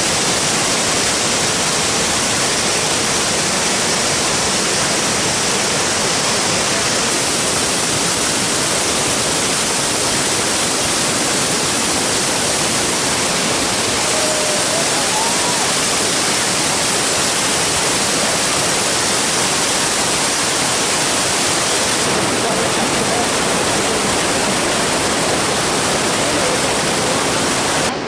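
Iguazu Falls: a steady, loud rush of water pouring over the falls, an even hiss with no breaks.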